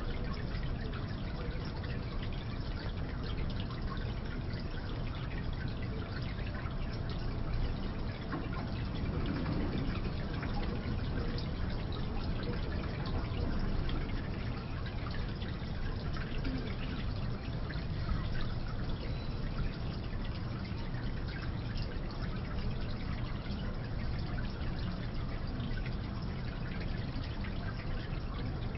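Small decorative indoor fountain: water trickling and splashing steadily into its basin, with a continuous, even burble.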